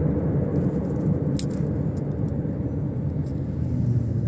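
Steady low rumble inside a car cabin, with a few small sharp clicks as a fidget spinner's bearing cap is picked and pried at.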